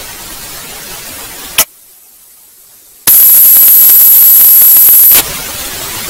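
Electrical static hiss from a dead audio feed. A sharp click comes about a second and a half in and the hiss drops lower, then it jumps to a much louder hiss with a steady high-pitched whine for about two seconds. It falls back to a lower hiss and cuts off abruptly at the end.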